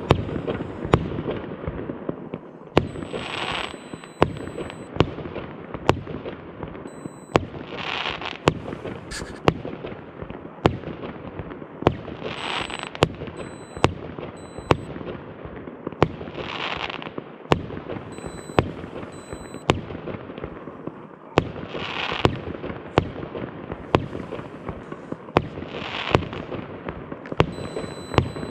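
Fireworks going off: a steady run of sharp bangs about once a second over continuous crackling, with a hissing burst every four to five seconds.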